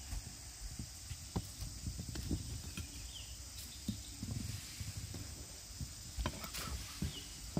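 Scattered light knocks and taps as newly forged hand hoes (wangkil) with wooden handles are handled and laid down one beside another, with a sharper knock about six and a half seconds in.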